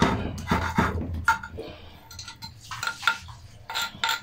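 Stone roller of a sil-batta grinding slab working soaked urad dal: a few rough grinding strokes of stone on stone, then scattered clinks and taps as the stone is knocked and shifted on the slab.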